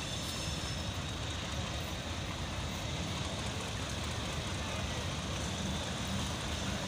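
Diesel-electric locomotive's engine running with a steady low rumble as it hauls a passenger train in, with a thin steady high tone above it.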